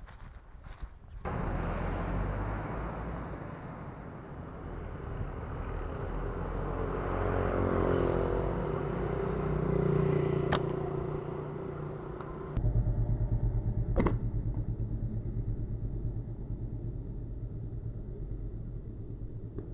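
Road traffic: a motor vehicle passing, swelling and then fading. This is followed by a steady low rumble with a couple of sharp clicks, the louder one about fourteen seconds in.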